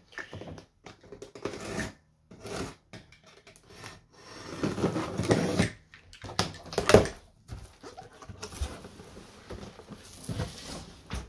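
A cardboard shipping box being opened by hand: packing tape slit and torn, flaps pulled open, and cardboard scraping and rustling in irregular bursts, with a longer tearing noise about four seconds in and a few sharp knocks near seven seconds.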